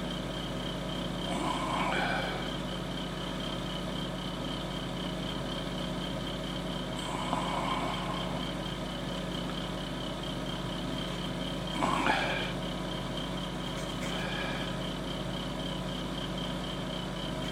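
Steady background hum with fixed tones, with a few faint rustles and knocks from small plastic model parts being handled, and one sharper click about twelve seconds in.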